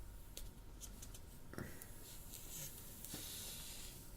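Faint rubbing and light clicks of hands handling a new smartphone and its plastic protective film, with a soft rubbing hiss over the last couple of seconds.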